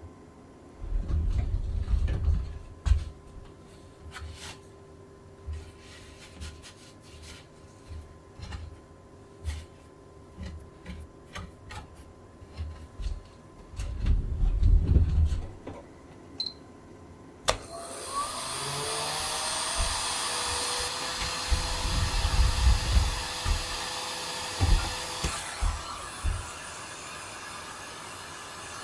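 Knocks, clicks and low thumps of tools and materials being handled, then about two-thirds through a small electric motor switches on suddenly, whining up to speed and running steadily with a rushing hiss.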